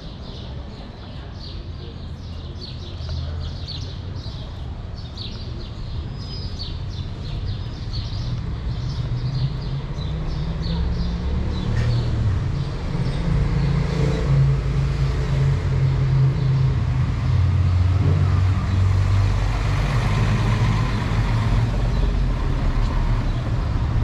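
Street traffic: a motor vehicle's engine comes in about halfway through and grows louder, running low and steady as it passes close. Birds chirp in the first half.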